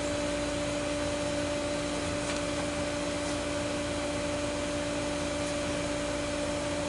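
Steady electric motor hum at a constant pitch and level, with no start, stop or change.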